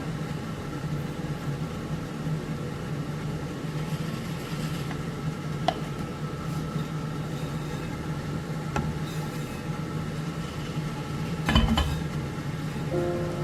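A steady low hum from a running motor or appliance, with a couple of light clinks of kitchenware and a louder clatter of dishes near the end.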